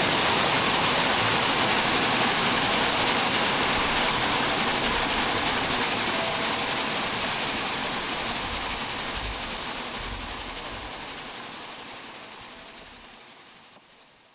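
Steady rushing water noise, like heavy rain running over glass, fading slowly out from about halfway through.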